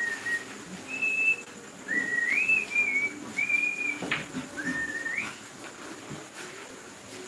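A person whistling a tune: short held notes joined by upward slides. About four seconds in comes a single sharp clack of a cue striking a pool ball.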